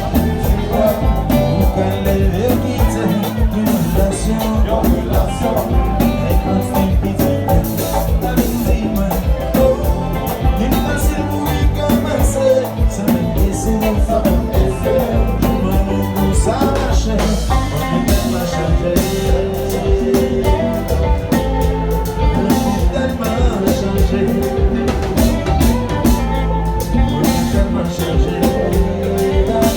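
Band music with a steady beat: drum kit, bass and guitar with singing.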